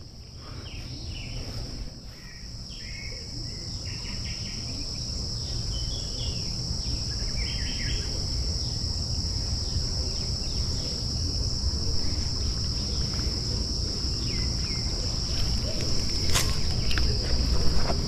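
Steady, high-pitched chorus of insects over a low rumble, with scattered short chirps in the first half and a couple of sharp clicks near the end.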